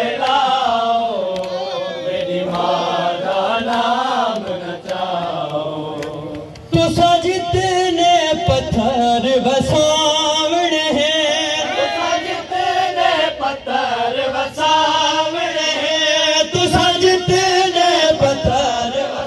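Men chanting a noha lament, a sung refrain led over microphones and taken up by the group. About seven seconds in the chanting gets suddenly louder, with dull thuds from hands beating on chests (matam).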